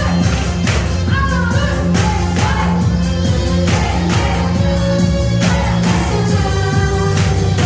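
Upbeat Asian pop song with a singing voice over a steady beat, played as music for an exercise routine.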